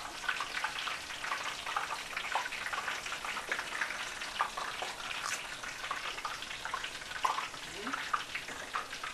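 Hot oil sizzling and crackling steadily in a stovetop deep-fry pot with a wire frying basket, where batches of potato chips are being fried.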